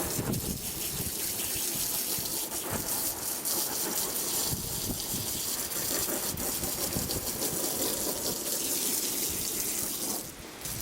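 Water gushing steadily from a hose onto a soaked car carpet, stopping about ten seconds in.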